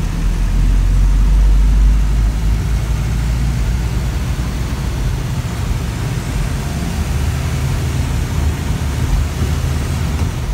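Inside a vehicle's cabin while driving in heavy rain: a steady low engine and road rumble under an even hiss of rain and wet tyres.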